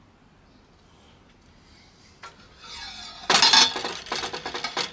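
Aluminium antenna element tubes being handled: after a quiet start there is a short scrape, then a loud metallic clatter about three seconds in as a tube knocks against the others, followed by lighter clinks.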